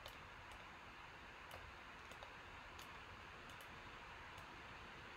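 A few faint, scattered clicks from a computer mouse and keyboard over a steady hiss of the computer's cooling fan, running hard because the Mac has overheated.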